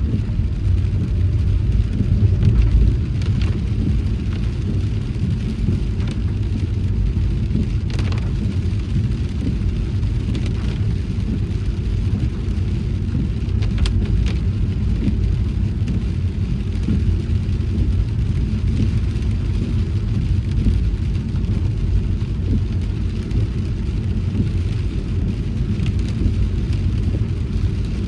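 A car driving on a rainy day: steady low rumble of engine and road noise, with a few faint clicks.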